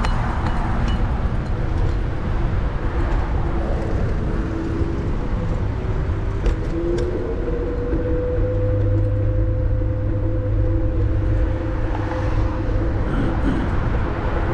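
Varla Eagle One electric scooter underway, with wind and road rumble on the microphone. A motor whine rises about five seconds in, holds steady, then fades near the end.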